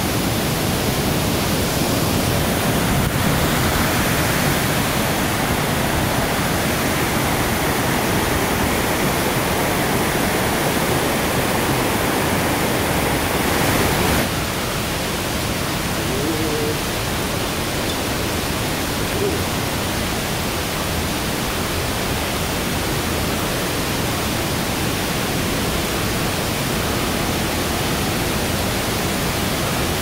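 Steady rush of water, an even hiss; it steps down slightly in level about halfway through.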